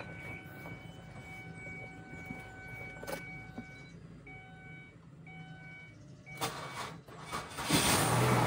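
Car engine running with a steady low hum while a steady electronic tone sounds on and off, then a loud surge of engine noise near the end.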